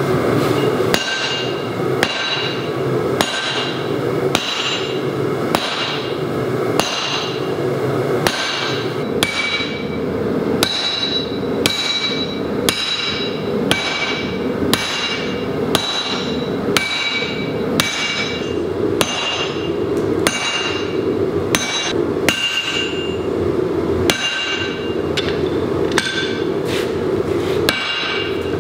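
Hand hammer striking a mild-steel drift through the hot punched eye of a 1045 steel axe head on a thick steel striking plate: about one blow a second, each with a brief metallic ring. A gas forge makes a steady rush underneath.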